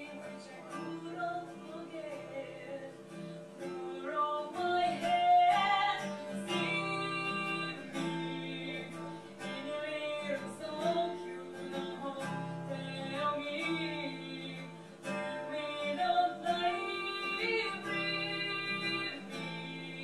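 A woman singing to a strummed acoustic guitar.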